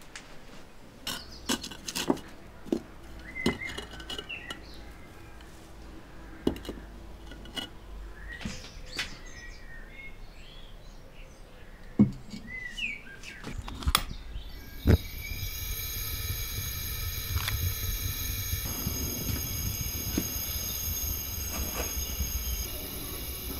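A ceramic jar and its bat knock and scrape as they are set into a fibre-lined oil-drum kiln, with birds chirping. From about fifteen seconds in, a steady roar with a high hiss sets in: the kiln's gas burner firing.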